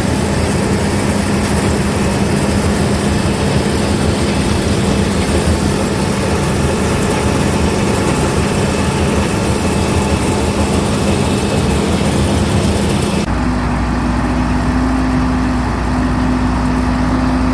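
Heavy farm machinery running steadily, with an engine drone and a steady hum. About 13 seconds in the sound shifts abruptly to a slightly higher hum with more low rumble.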